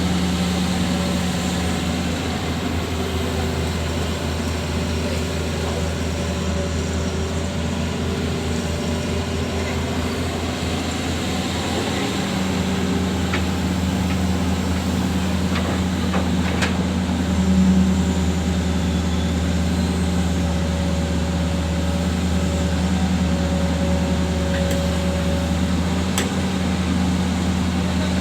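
Excavator's diesel engine running steadily with a low hum, swelling briefly about two-thirds through, with a few sharp clicks or knocks in the second half.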